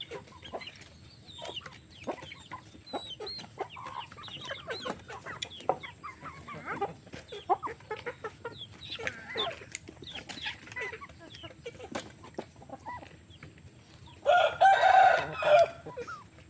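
A flock of free-range chickens clucking with many short calls. About fourteen seconds in, a rooster crows loudly for about a second and a half.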